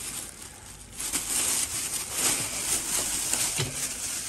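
Thin red plastic carrier bag crinkling and rustling as it is untied and pulled open and off a load of raw pork skins in a stainless steel bowl.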